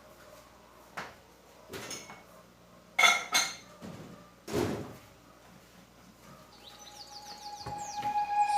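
Kitchen handling sounds: a few scattered knocks and a ringing clink of dishes being set down. Near the end a chiming music jingle fades in and grows louder.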